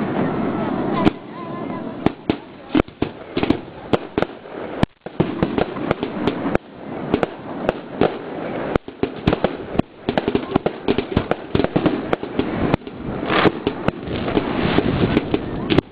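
Aerial firework shells bursting in rapid succession: many sharp bangs, several a second, over a continuous dense noise from the display.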